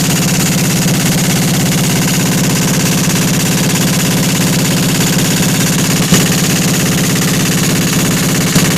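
Kohler KD425-2 two-cylinder air-cooled diesel engine running steadily at constant speed, with a rapid, even exhaust beat. A brief sharp click or knock comes through about six seconds in.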